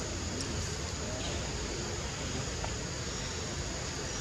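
Steady outdoor background noise: an even hiss with a low hum beneath it, and a few faint, brief chirps.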